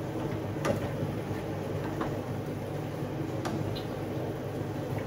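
A metal spoon clinking against a saucepan as a pot of greens and pork broth is stirred: a few light, separate clicks over a steady low hum.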